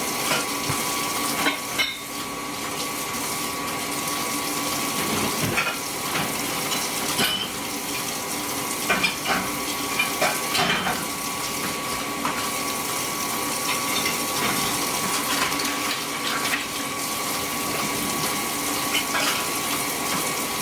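Kitchen tap running steadily into a sink while dishes are washed, with scattered clinks of bowls and utensils.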